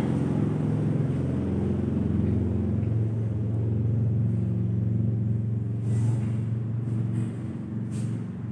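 A steady low mechanical rumble with a slight shift in pitch about one and a half and three seconds in, and a few faint clicks near the end.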